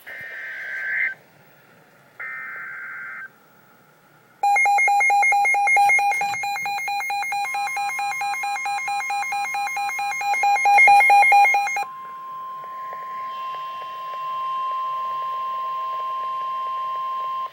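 Emergency Alert System warning tones: two short warbling data bursts of the digital alert header, then a loud, rapidly pulsing electronic beep for several seconds. Under the beep and after it comes the steady 1050 Hz National Weather Service warning tone, which cuts off at the end.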